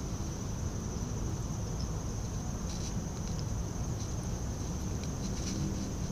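Steady, high-pitched chirring of insects from the shoreline over a low, even rumble, with a few faint clicks.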